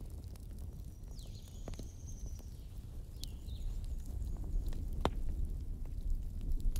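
Fireplace wood fire burning with a steady low rumble and a few sharp crackling pops, the loudest about five seconds in, along with several short high whistling squeaks.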